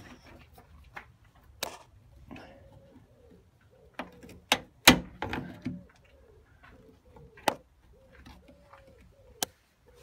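A few sharp clicks and knocks from a Ford Focus Mk2 bonnet as its broken lock finally lets go and the bonnet is raised, the loudest about five seconds in. Faint repeated cooing of a pigeon or dove in the second half.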